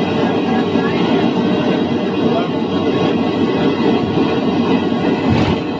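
Steady, loud rumbling cabin noise inside an aircraft cabin training mock-up, the simulated in-flight sound of an emergency-landing drill, with one short sharp click about five seconds in.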